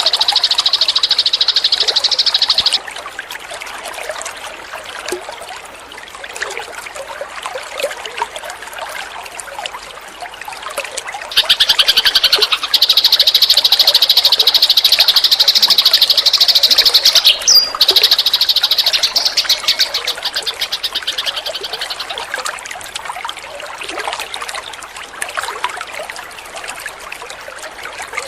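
Eurasian tree sparrows chirping. A loud, rapid buzzing trill high in pitch runs for the first few seconds and again from about 11 to 20 seconds in, with softer scattered chirps in between and afterwards.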